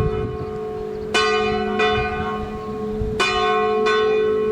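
A single church bell ringing, struck four times in pairs, a strong stroke followed about two-thirds of a second later by a weaker one. Each stroke rings on long, its hum sustaining between strokes.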